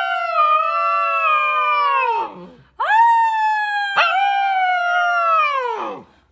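A dog howling: two long howls, each sliding slowly down in pitch before trailing off. The first is already under way and ends about two seconds in; the second starts near the three-second mark with a brief catch in the voice a second later.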